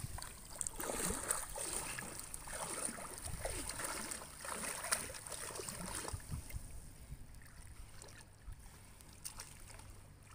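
Pool water sloshing and splashing around a child wading through it, busier for the first six seconds and then quieter.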